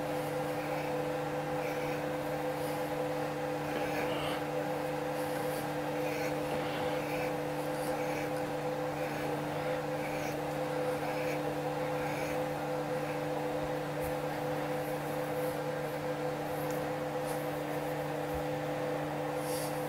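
Steady electric machine hum, with faint light metallic ticks about once a second from hand-tapping threads into holes in a cast-iron locomotive cylinder block.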